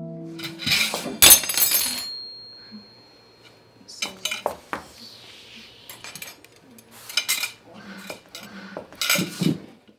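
Metal cutlery (a spoon, fork and knife) clattering onto a hard floor about a second in, with one piece ringing briefly afterwards. This is followed by separate clinks as the pieces are picked up off the floor one at a time.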